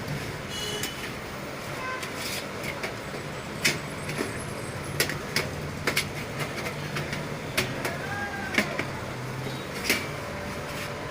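Sharp clicks and knocks of metal and plastic computer parts being handled, as a DVD writer is slid into a desktop cabinet's drive bay, over a steady low rumble of background noise.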